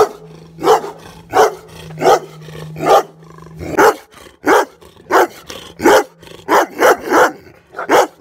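Large dog barking loudly and repeatedly, about a dozen barks at roughly one every two-thirds of a second.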